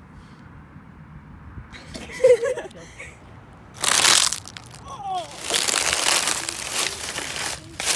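Dry fallen leaf crunching under a sneaker on asphalt: one sharp crunch about four seconds in, then a longer crackling crunch lasting a couple of seconds.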